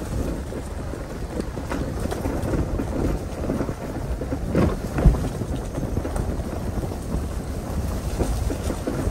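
A vehicle driving slowly over a rough, leaf-covered dirt woods track: a steady low rumble from the tyres and body jolting over the ground, with wind buffeting the microphone. There is a sharp thump about five seconds in.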